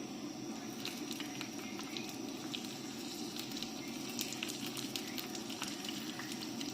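Hot chili oil sizzling: a steady hiss with many small, scattered crackles as the oil fries the chili and Sichuan peppercorns in it.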